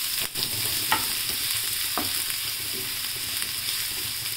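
Chopped onion and garlic sizzling in hot oil in a nonstick frying pan, being sautéed toward light brown while a wooden spatula stirs and scrapes them. The spatula knocks the pan sharply twice, about one and two seconds in.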